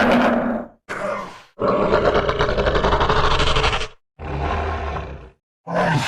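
Creature sound effects voicing Irritator, a spinosaurid dinosaur: a run of about five roaring calls separated by brief silences. The longest, from about one and a half to four seconds in, has a fast pulsing, rattling texture; another call starts near the end.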